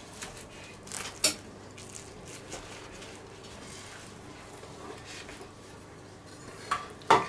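Kitchen knife cutting through a baked puff-pastry crust on a wooden cutting board: quiet scraping and crackle, with a couple of light knocks about a second in and a sharp clack near the end.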